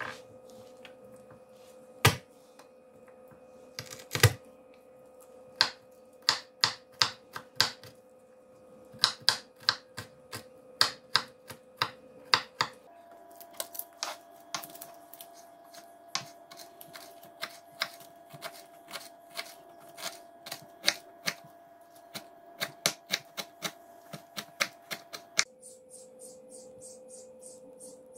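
Kitchen knife chopping garlic and then a bunch of dill finely on a wooden cutting board: a long run of sharp knocks of the blade striking the board, with two heavier thumps in the first few seconds and quicker, steadier strokes after that. A faint steady hum runs underneath, and the chopping stops a few seconds before the end.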